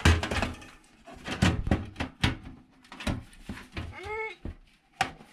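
A computer power supply being worked into a metal PC case: a run of knocks, clatters and scrapes, the loudest right at the start. About four seconds in comes one short squeak that rises and falls in pitch.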